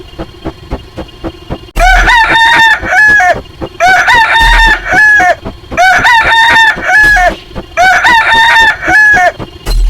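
Rooster crowing sound effect, the same crow played four times in a row about two seconds apart, over faint background music with a low beat.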